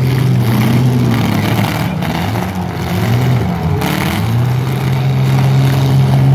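Several demolition derby cars' engines revving hard, their pitch repeatedly rising and falling as the cars shove against each other, with a short burst of noise about four seconds in.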